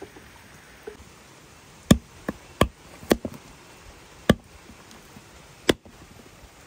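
A blade chopping: about seven sharp strikes at irregular spacing, beginning nearly two seconds in.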